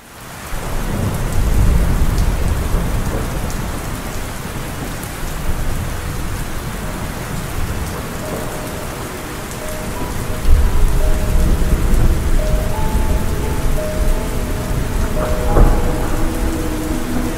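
Steady rain with rolling thunder: deep rumbles about a second in and again around ten seconds in. Soft sustained notes of slowed, reverb-heavy music fade in under the rain from about eight seconds.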